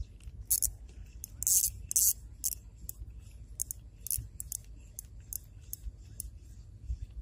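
Ultralight spinning reel clicking as its handle is cranked to retrieve line: a run of sharp, uneven ticks about two or three a second, with a short hissing rasp about one and a half seconds in, over a low steady rumble.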